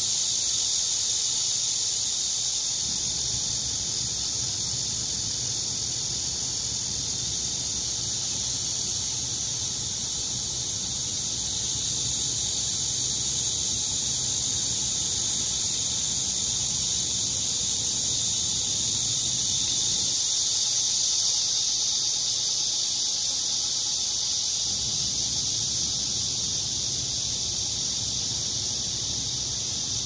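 Cicadas singing in a steady, unbroken high-pitched chorus.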